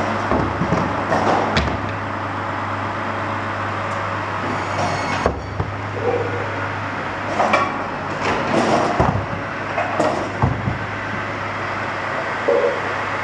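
Tractor-driven Posch firewood processor running with a steady mechanical hum. Irregular knocks and clatters come as cut logs drop and strike each other and the metal chute.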